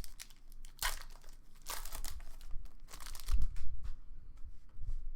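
Trading card pack wrappers crinkling and tearing in short bursts as packs are opened and handled, with a low thump about three and a half seconds in.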